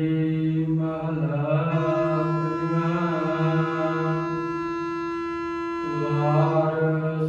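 A man's voice chanting Gurbani in a slow, drawn-out melodic recitation of the hukamnama, holding one long steady note for about four seconds in the middle before moving on.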